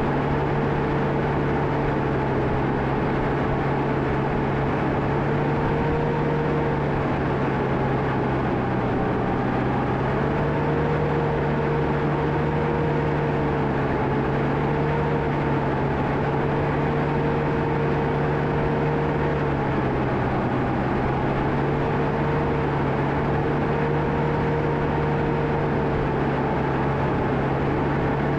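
Diesel engine of a John Deere 650K crawler dozer running steadily at working revs, its pitch sagging slightly and recovering a few times as it works.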